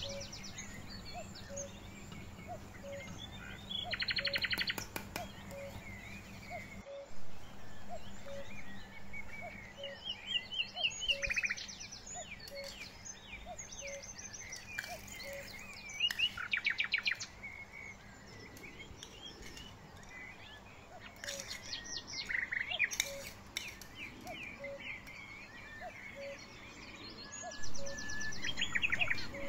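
Songbirds chirping and trilling in short repeated bursts, with a faint regular tick under them about once a second.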